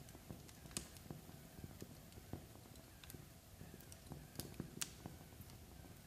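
Log fire crackling faintly: irregular soft ticks over a low rumble, with a few sharper pops.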